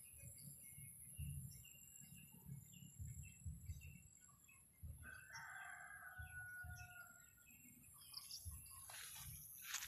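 Rooster crowing once, faintly, about halfway through: a single crow held for about two and a half seconds. Small birds chirp briefly around it.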